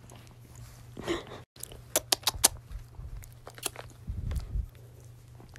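A dog licking and snuffling right up against the phone, with wet mouth clicks and smacks and fur and clothing brushing the microphone.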